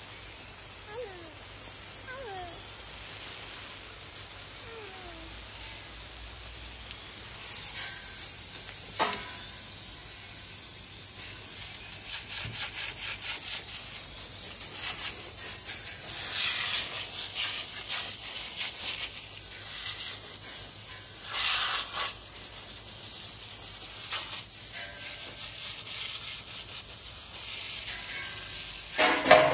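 Water spraying from a garden hose onto a wet horse's coat: a steady hiss that swells and eases as the stream moves over the body.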